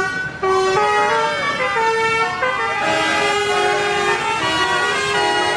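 Telolet bus horn: a set of air horns playing a quick tune of held notes that step up and down, several sounding together.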